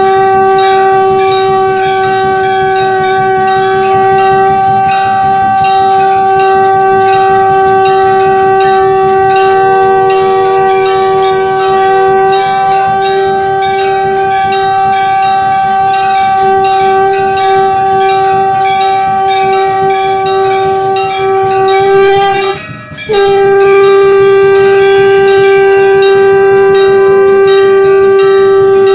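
Shankh (conch shell) blown in one long, steady, loud note, which breaks off briefly about 23 seconds in and then resumes. Temple bells ring faintly underneath.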